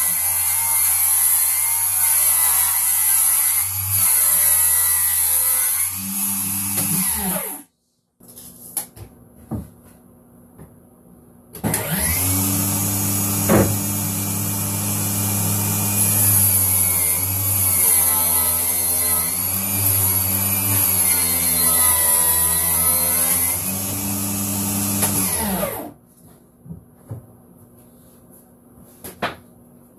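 Power saw, most likely a cordless circular saw, running through plywood with a high motor whine, its pitch wavering under load. It runs for about seven seconds and spins down, then starts again about four seconds later for a longer cut of about fourteen seconds that also ends in a spin-down.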